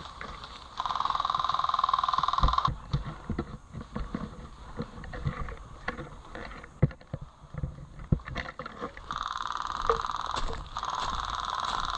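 Airsoft electric guns firing long full-auto bursts, each a rapid steady buzz lasting one to two seconds: one about a second in and two more near the end. In between, footsteps crunch through dry fallen leaves.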